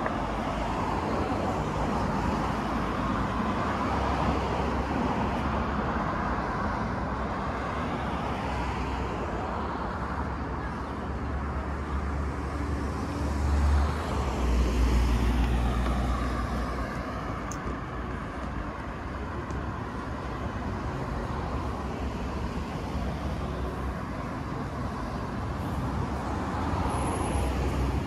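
Road traffic: a steady rush of vehicle engine and tyre noise, with a heavier low rumble swelling up about halfway through.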